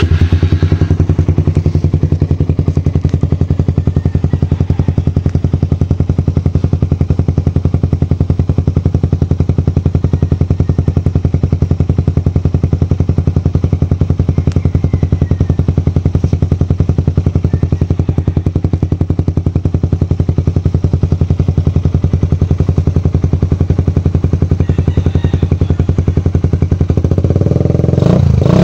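Suzuki Raider R150's single-cylinder four-stroke engine breathing through an Akrapovic 51mm standard-type exhaust with its silencer insert removed, just started and idling steadily with a fast, even exhaust putter. Near the end it revs up, louder and rising.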